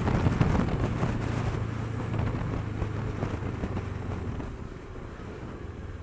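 Kawasaki Versys 650 parallel-twin engine running at a steady cruise beneath heavy wind rush on the microphone. The sound grows gradually quieter over the last few seconds.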